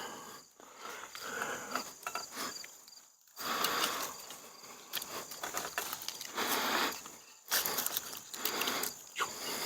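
A ratchet strap being cranked tight to hold the top of a lock-on tree stand to the trunk: bursts of ratchet clicking with short pauses between.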